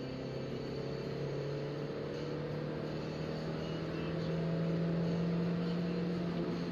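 1994 Toyota Corolla 4WD's 1.5-litre four-cylinder engine pulling under load, heard from inside the cabin. Its note climbs slowly and grows louder as the car accelerates.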